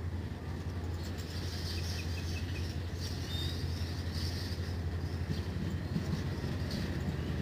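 Steady low rumble of an idling diesel rail vehicle, with a few short bird chirps about two and three seconds in.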